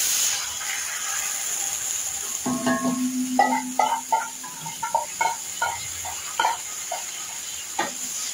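Hot oil and browned onions sizzling in an aluminium pot with a steady hiss as yogurt is poured in. From about three seconds in comes an irregular run of sharp metal clinks and scrapes as the metal bowl is scraped out over the pot.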